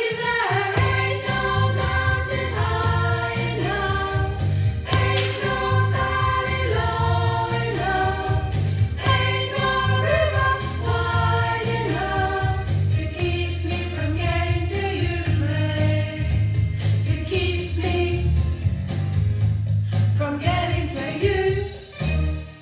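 An upbeat song sung over a band backing track with a steady bass beat. It stops abruptly near the end.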